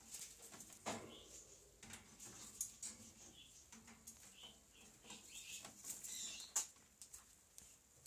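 A parakeet flapping its wings inside a wire cage, with scattered light knocks and clicks, the sharpest about a second in and again past the middle, and faint high chirps of other small parrots.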